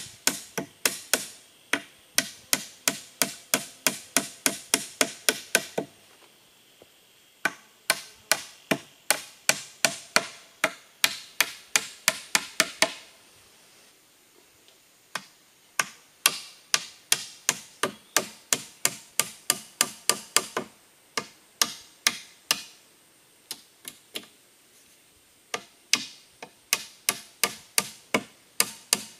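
Hammer blows on a wooden pole frame overhead, a steady two to three sharp strikes a second in several runs broken by short pauses.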